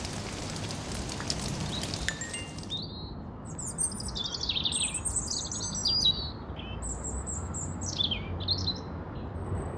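Rain hiss with faint crackles that stops abruptly about three seconds in, giving way to birdsong: clusters of high chirps and quick falling whistles, over a steady low rumble.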